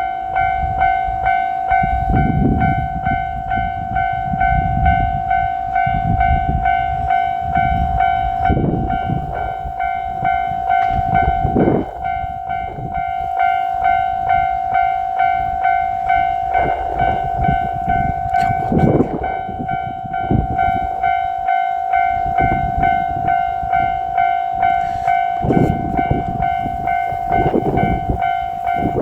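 Japanese level-crossing warning bell ringing in a steady, rapidly repeated electronic clang, under which a JR Shikoku 1000 series diesel railcar runs past with a low rumble that swells and fades several times.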